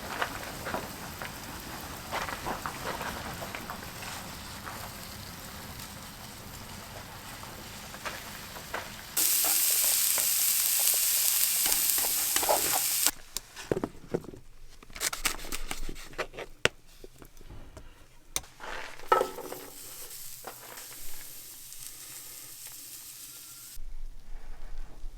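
Steak and peppers frying and sizzling in a pan, with scattered clicks and clinks of a utensil. About nine seconds in, a much louder sizzling hiss starts abruptly and lasts about four seconds, then gives way to quieter knocks and clinks.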